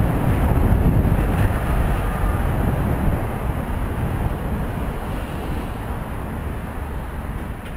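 Wind rushing over the microphone of a cyclist's camera, mixed with the rumble of road traffic, fading gradually as the bike slows behind the queue.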